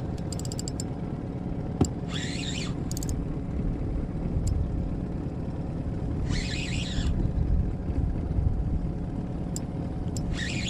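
Spinning reel's drag giving out line in short buzzes, four times a few seconds apart, as a large catfish pulls against the rod, over a steady low rumble.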